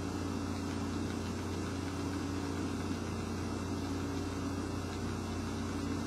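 Steady low mechanical hum of room background noise, even throughout with a few steady low tones.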